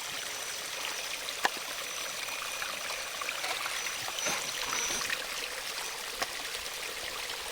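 Water of a small waterfall running steadily. A faint thin high whine sounds over it and stops about five seconds in, and there is one sharp click about a second and a half in.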